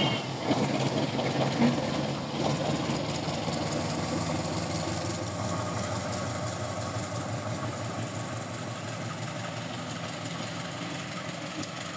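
A CC 201 diesel-electric locomotive's engine running steadily as the light engine moves away along the track, its hum slowly growing fainter.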